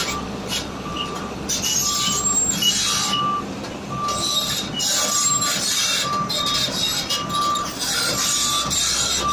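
CAT 320C tracked excavator travelling on its steel tracks, the tracks squealing and grinding in repeated surges, with a short beep repeating about once a second.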